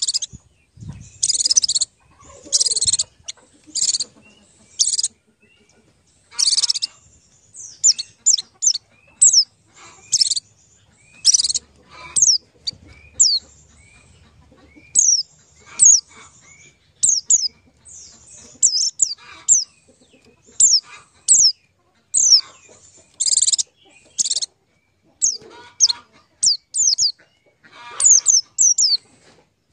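Birds chirping: many short, high, sharp calls, some sliding down in pitch, repeated in quick runs.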